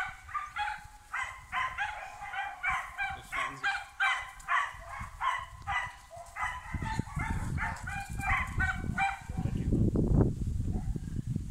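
Puppies yapping in a rapid string of short, high barks, several a second, for most of the first nine seconds. From about seven seconds in, a low rumble comes in and is loudest near the end.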